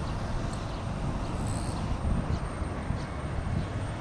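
Steady low rumble of a jet airliner's engines at the airport, with a few faint short high chirps above it.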